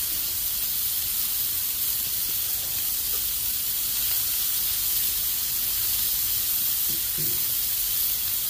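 Beef burger patties sizzling on a hot flat-top griddle: a steady hiss.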